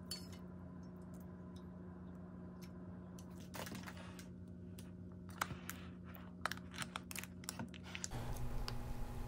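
Light clicks and taps of wooden chopsticks against a plastic food tub as glass noodles are stirred into the broth, with soft handling of the containers, over a steady low hum.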